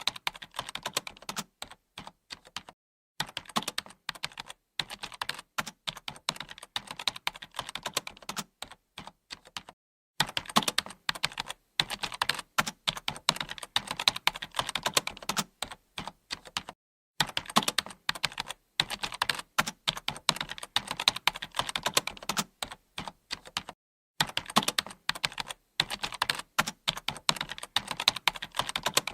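Computer keyboard typing: rapid clicking keystrokes in runs of several seconds, broken by brief pauses.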